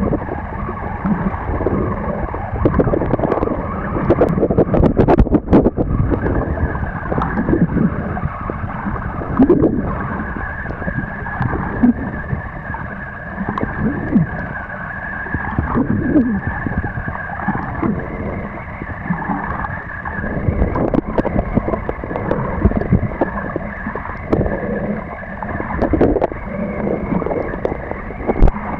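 Underwater sound from a camera held below the surface: a continuous muffled rumble of moving water against the housing, with gurgling and scattered clicks and knocks.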